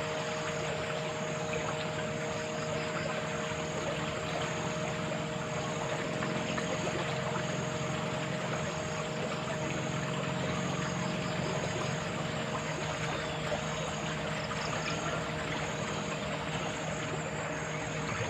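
Steady rush of flowing water, with a constant hum underneath.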